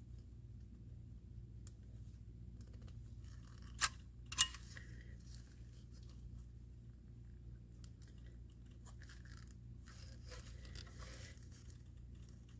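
Two sharp clicks about four seconds in, then faint rustling handling noise, over a steady low hum: the broken halves of the circuit board being handled and lined up on the bench.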